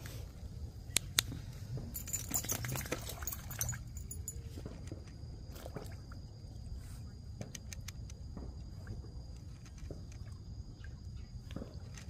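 Water splashing and sloshing around a German wirehaired pointer wading through shallow lake water, with a busier burst of splashing two to four seconds in and scattered small drips and ticks after, over a steady low rumble.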